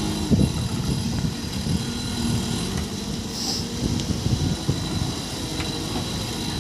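The diesel engine of a JCB 3CX backhoe loader runs as a steady low rumble, with scattered short knocks and clanks over it.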